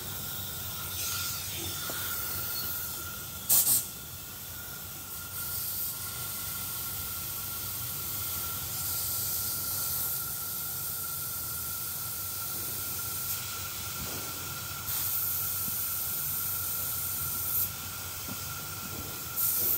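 Compressed air hissing through an inflator chuck into a truck tyre's inner tube, in several spells that rise and fall, with two short loud spurts, one a few seconds in and one near the end. The tube is being given only a little air so it will not fold or get pinched when the tyre is mounted.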